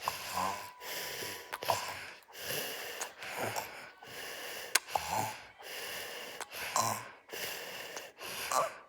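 A little boy snoring in his sleep: rasping, wheezy breaths in and out in a steady rhythm, about one breath every second or two, some with a low buzzing snore.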